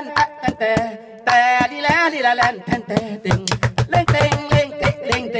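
A man singing into a microphone over music with a drum beat, his voice holding and bending long notes between sharp, evenly spaced drum strikes.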